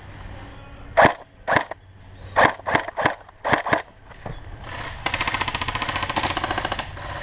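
Airsoft guns firing: seven sharp single shots over about three seconds, then a rapid full-auto burst lasting about two seconds.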